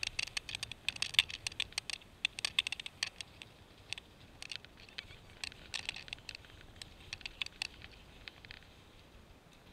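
Rapid, irregular clicking and crackling of skis running over rutted spring snow, picked up by the skier's action camera. The clicks thin out and stop after about eight and a half seconds.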